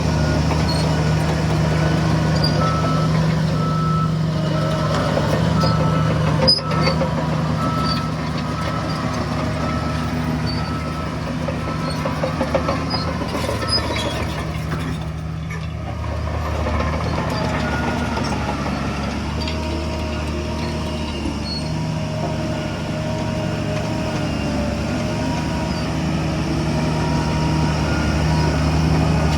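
Heavy diesel earthmoving machinery, a bulldozer and dump truck, running steadily under load, with a reversing alarm beeping in evenly spaced pulses. A higher-pitched alarm sounds during the first several seconds and a lower one from about twenty seconds in, and there is a single sharp knock about six seconds in.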